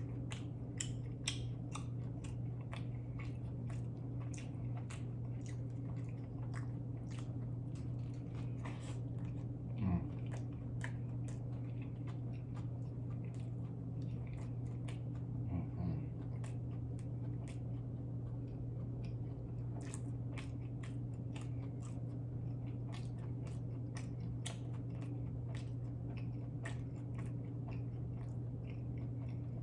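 Close-miked biting and chewing of a jalapeño cheeseburger: a steady stream of wet, crunchy mouth clicks and smacks.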